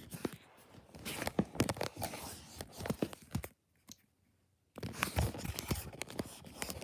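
Handling noise: scattered clicks, taps and rustles as yellow wooden pencils and a plastic pencil box are moved about on carpet, with the phone itself being handled. The sound drops out almost completely for about a second a little past the middle.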